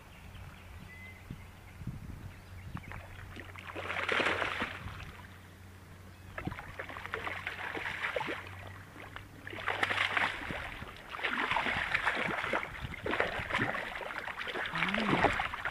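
A hooked bass splashing and thrashing at the water's surface in repeated bursts, loudest about four seconds and ten seconds in, as it is fought to the bank on a rod.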